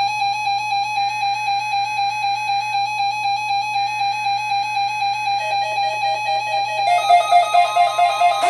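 Electronic keyboard music: one held, slightly wavering note, joined by a lower note about five seconds in and by more notes near the end.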